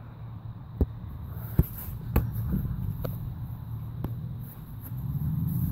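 A football being tapped with the foot: five short sharp knocks about a second apart, over a steady low rumble on the microphone.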